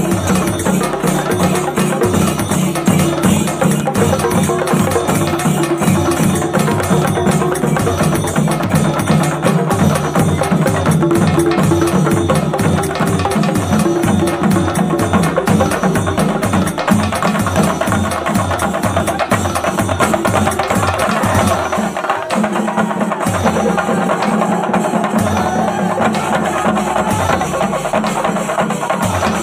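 Percussion-led music with a fast, steady drum beat over a sustained melody line, the bass pattern changing about two-thirds of the way through.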